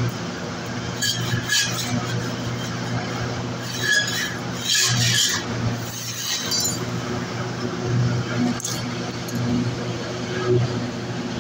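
Thin galvanized steel sheet being handled and shifted on the ground, giving scattered light metallic clinks and rattles, most of them clustered a second in, around the middle and about three-quarters of the way through. A steady low engine-like hum runs underneath.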